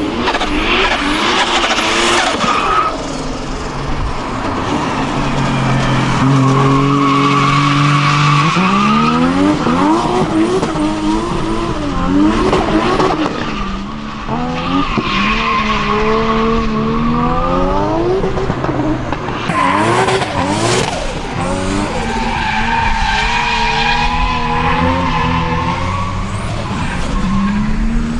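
Toyota 2JZ straight-six in a drifting Opel Omega, revving hard, its pitch climbing and dropping again and again, over the squeal of the rear tyres spinning and sliding.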